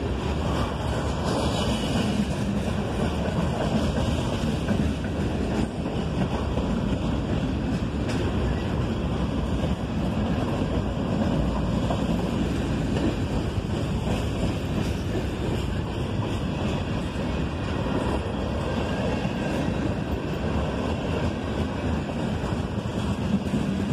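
Norfolk Southern freight train rolling past: a steady rumble of wheels on rail, with wind on the microphone.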